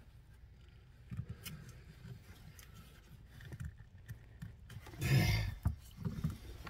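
Handling noise as clear vinyl tubing is worked and twisted onto the barbed fitting of a 12 V water pump: faint rubbing and small clicks, with one louder, short burst of noise about five seconds in.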